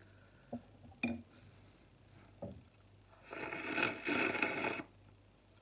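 Glass noodles slurped up off chopsticks, a noisy slurp lasting about a second and a half, with a short break partway through, a little past halfway in. A few light clicks come before it.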